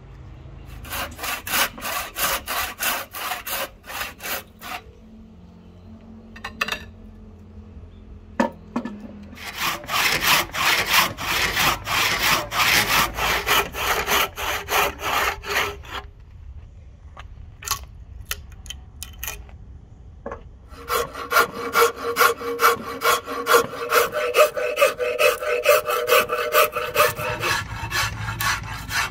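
Handsaw cutting a palm-wood axe-handle blank clamped in a vise: runs of quick back-and-forth strokes with short pauses between. Near the end, a flat file scrapes along the wood.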